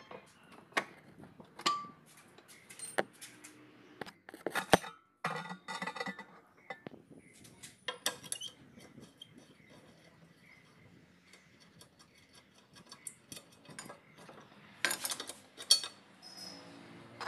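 Hand tools clinking and clicking on metal fittings of a car's rear brake and axle: scattered light metallic taps, with the loudest clusters about five seconds in and near fifteen seconds.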